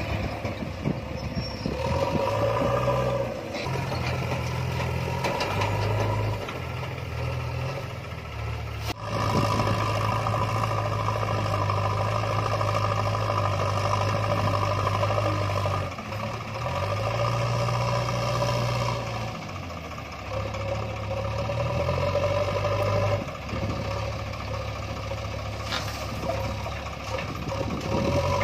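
Diesel engines of a Swaraj 744 tractor and a JCB backhoe loader running together, the engine speed stepping up and down several times as the loader lifts and carries a bucket of soil to the trolley. A single sharp knock about nine seconds in.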